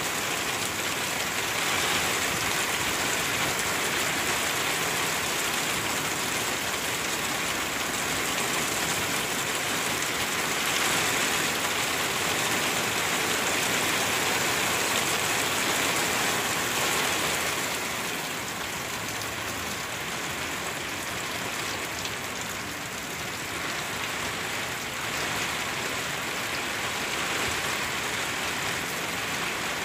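Heavy rain pouring down in a dense, even hiss, easing slightly about two-thirds of the way through.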